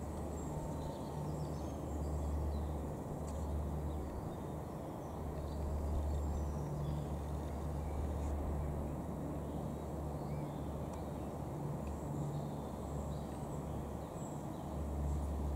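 Distant Antonov An-12BP's four Ivchenko AI-20 turboprop engines: a low, pulsing hum that swells and fades every second or two. Birds chirp faintly.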